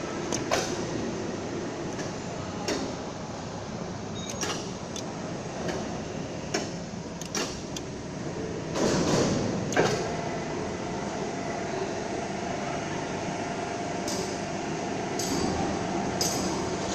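Steady mechanical background noise with scattered clicks and knocks, a louder clatter about nine seconds in, and a steady hum that sets in about ten seconds in.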